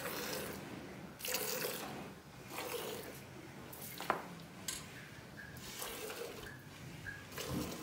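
Milk squirting into a steel pail as a cow is milked by hand, a frothy hiss with each squeeze, several squirts a second or so apart. A short sharp click comes about four seconds in.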